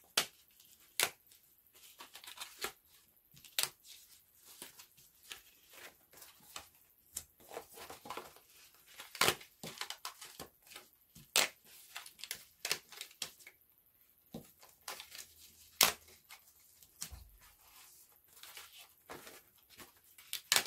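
Die-cut card stock being pressed out of its sheet with a stick tool: irregular sharp snaps and pops as the pieces break free, with paper rustling between.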